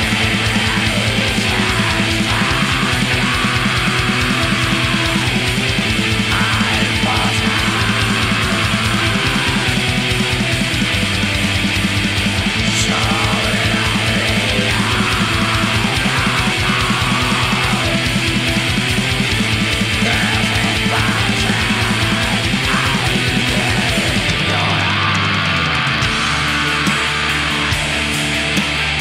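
Black metal recording: distorted guitars over rapid, dense drumming, with the drums and deep low end dropping out about 24 seconds in while the guitars carry on.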